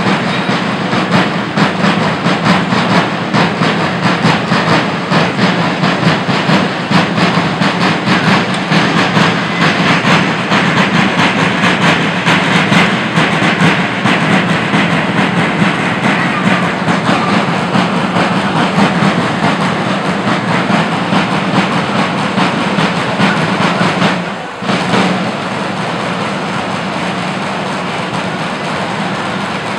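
Two large festival drums played in a fast, unbroken rhythm of dense strokes. About 24 seconds in the sound dips briefly, then goes on steadier and less sharp.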